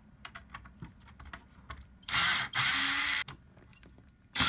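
Cordless power screwdriver backing out Torx T15 fan screws: a few light clicks as the bit is seated on the screw, then the motor runs for about a second, and starts running again near the end.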